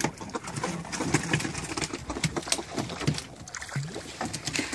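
Freshly caught fish flapping and slapping their tails on a boat deck: a rapid, irregular run of sharp knocks.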